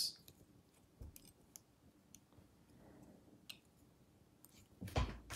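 Faint, scattered clicks of a plastic Transformers action figure's stiff joints being turned and ratcheted by hand, with a brief louder rustle of handling near the end.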